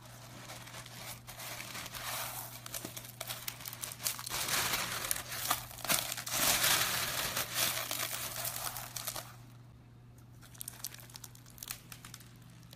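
Clear slime packed with small clear beads being squeezed and pressed by hand, the beads giving a dense crunchy crackle. It is loudest in the middle and thins to scattered crackles near the end.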